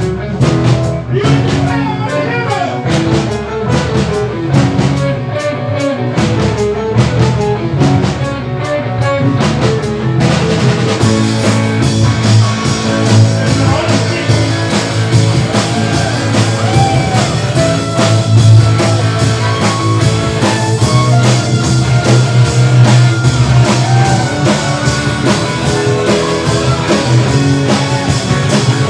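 Live jazz-rock fusion band playing: electric violin over electric bass, electric guitar, keyboards and drum kit. About ten seconds in the sound fills out as steady cymbals come in.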